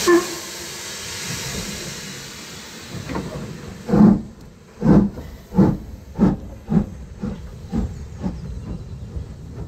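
Steam locomotive starting away. A loud hiss of steam dies down over the first few seconds, then the exhaust beats begin about three seconds in and quicken, from a little under one a second to about two a second.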